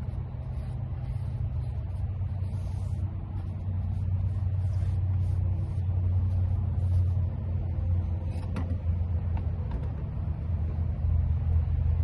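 Steady low rumble that grows louder and more uneven toward the end, with a single short knock about eight and a half seconds in.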